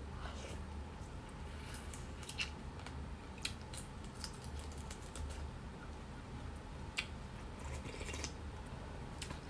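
Close-up eating sounds: a person chewing fried food, with scattered short crisp clicks from bites and the mouth, and a sip from a spoon near the end.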